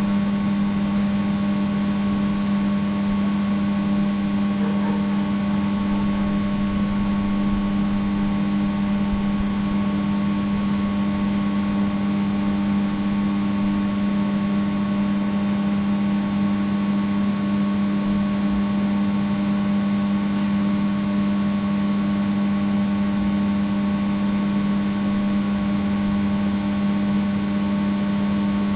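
A steady machine hum at one unchanging pitch, with no starts, stops or changes.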